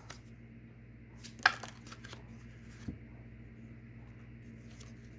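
Tarot cards being handled: a quick cluster of sharp, papery snaps about a second and a half in, and a single small tap near three seconds.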